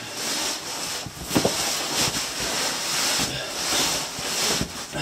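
Clothing and boots scraping and rubbing against rock while squeezing through a tight cave passage, in uneven swells with a few brief knocks.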